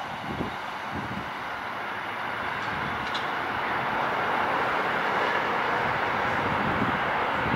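Chicago 'L' rapid-transit train approaching on the track, a steady rush of wheels on rail growing gradually louder.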